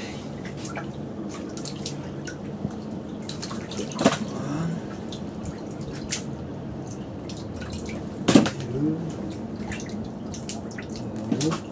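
Pikeminnow being handled in a bucket of water: wet splashing and dripping, with sharp knocks about four and eight seconds in, over a steady low hum.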